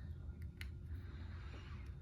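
Three faint, sharp metal clicks from a pick working in the lock of Smith & Wesson handcuffs.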